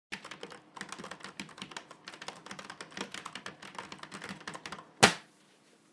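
AI-generated sound effect of fast typing on keys: a dense, irregular run of clicks, ending about five seconds in with one much louder clack.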